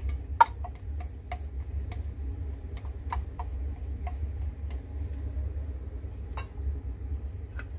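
Chopsticks clicking and tapping against a stainless steel bowl as soaked vermicelli is tossed with squid, in irregular light clicks a few times a second, over a steady low hum.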